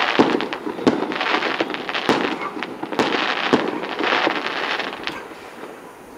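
Aerial fireworks bursting: several sharp bangs with a dense crackle between them, dying down near the end.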